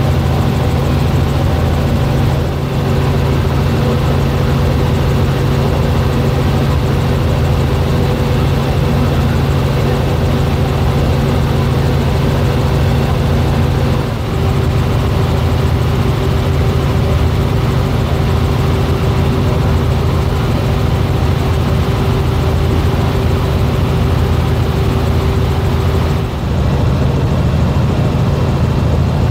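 Robinson R44 helicopter in flight, heard from inside the cabin: a loud, steady drone of the piston engine and rotors. The drone shifts slightly in pitch a few times.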